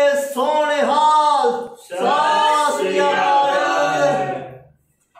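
Voices singing a prayer in long held notes: one man's voice first, with a fuller sound of several voices from about two seconds in, fading out near the end.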